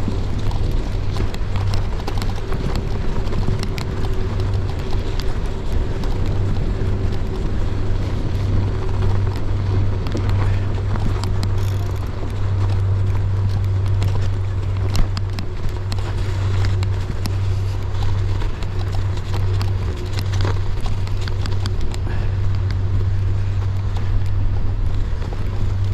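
Tyres of a Rose Backroad AL gravel bike rolling slowly over snowy, icy ground: a steady low rumble with many small scattered crunches and clicks.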